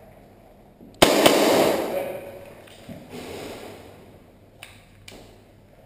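A loud bang about a second in, followed by about a second of rushing noise that dies away; a few sharp clicks come later.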